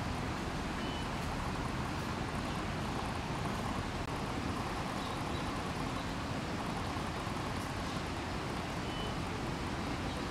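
Steady outdoor background noise with no distinct events, heaviest in the low range, with two faint brief high peeps, one about a second in and one near the end.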